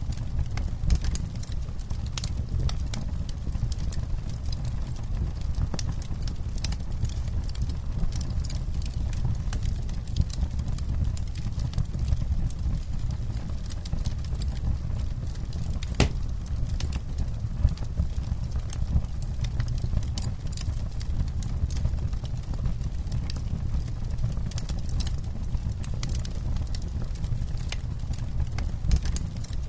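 Campfire crackling: frequent sharp snaps and pops over a steady low rumble, with one louder pop about halfway through.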